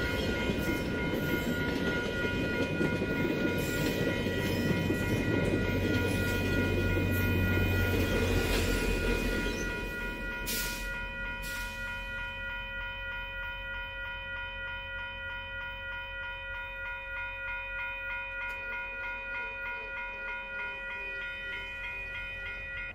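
VIA Rail passenger train of LRC coaches passing over a level crossing: a heavy rumble of wheels on rail with clicks from the rail joints, which fades away about ten seconds in. Throughout, the crossing's warning bell rings steadily in a regular pulsing pattern.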